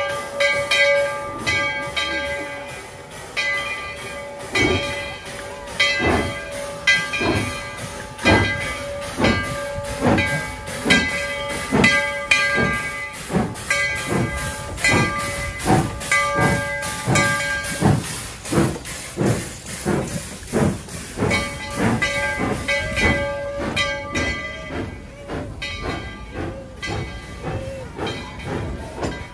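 Steam locomotive working under steam, its exhaust chuffing in a regular beat of roughly one a second that gradually quickens, over a steady hiss of steam. A steady high ringing tone sounds along with the beats for much of the time and fades out near the end.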